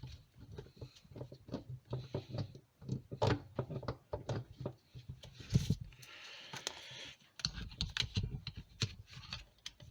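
Irregular clicks, knocks and scrapes of a rebuilt power steering pump being handled and worked back into place in an engine bay, metal parts bumping together, with a few sharper knocks midway.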